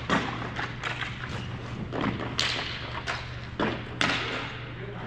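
A series of irregular thuds and knocks, about eight in the stretch, over a steady low hum.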